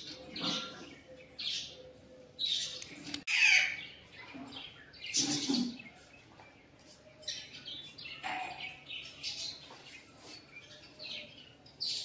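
Birds chirping: short, high calls in irregular bursts, roughly one a second, the loudest about three and a half seconds in.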